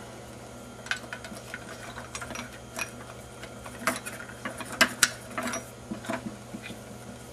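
Irregular light clicks and taps of small hardware and a circuit board being handled and fitted onto a stack of metal plates, loudest around five seconds in.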